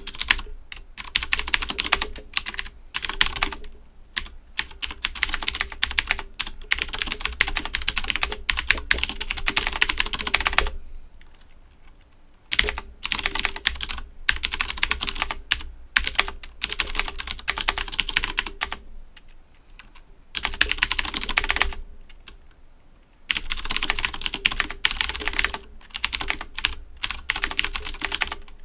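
Owltech OWL-KB109BM II mechanical keyboard with clicky Cherry MX Blue switches being typed on quickly and continuously, in rapid runs of keystrokes. The typing breaks off briefly twice, about a third of the way in and again about three quarters of the way in.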